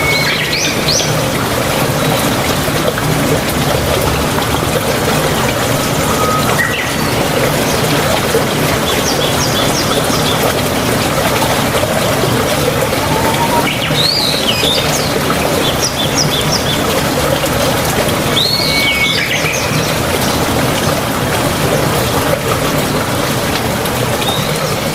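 Steady rain hissing, with birds chirping over it in short calls of quick repeated notes every few seconds.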